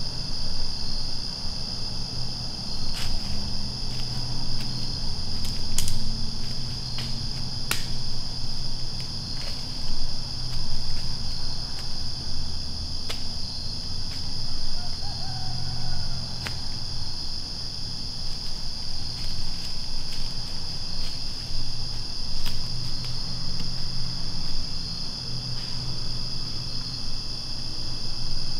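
Steady high-pitched chorus of crickets and other insects in the woods. Underneath runs a low rumble, broken by a few sharp clicks.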